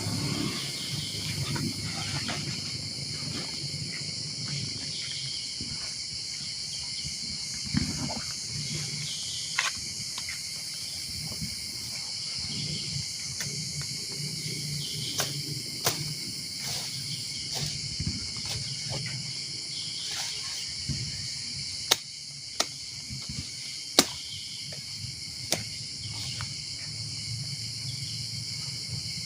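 A steady, high-pitched chorus of insects, crickets or cicadas, shrilling without a break. Now and then a sharp click or knock cuts through, the loudest two about two-thirds of the way in.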